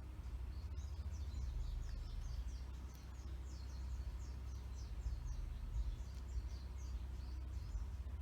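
Young budgerigars chirping in a rapid run of short, high chirps, over a steady low rumble.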